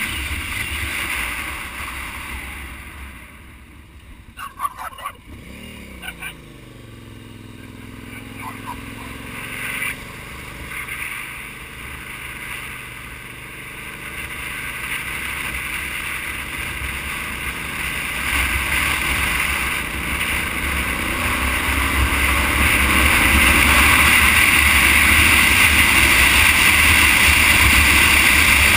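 Motorcycle engine and wind noise on the microphone while riding. A few clicks come around four to six seconds in and the engine falls in pitch as the bike slows. Later the engine climbs in pitch again and the wind grows louder over the last several seconds as speed builds.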